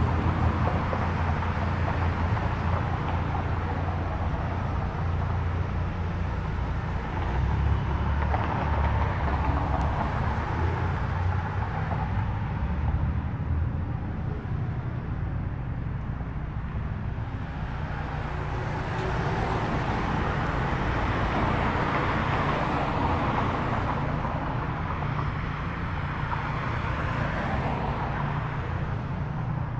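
Car engines running at low speed, a steady low rumble with the sound swelling about a quarter of the way in and again past the middle.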